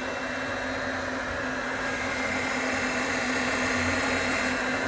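Maho MH 600 milling machine's spindle running with no tool at its top speed of 2000 rpm: a steady, even whir with a constant low hum and no knocking or grinding. The smooth, quiet running is the sign of a spindle in good condition, which the seller calls completely silent at high RPM.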